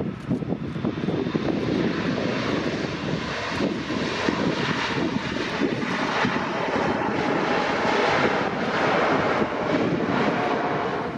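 Jet airliner engines passing close by, a rumbling roar that grows brighter and slightly louder toward the end.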